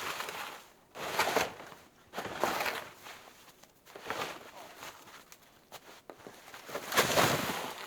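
Loaded gear sled being dragged over a log and through snow: a run of separate scraping, crunching strokes, the loudest about seven seconds in.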